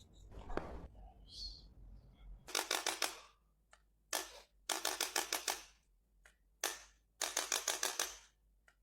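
About five short bursts of rapid, even clicking, roughly ten clicks a second, each burst lasting up to about a second with short gaps between.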